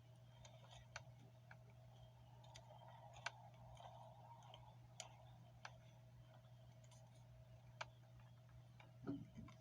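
Faint, scattered small clicks and taps of a flathead screwdriver prying at the steering wheel's plastic airbag retaining clips, over a low steady hum, with a brief louder rattle near the end.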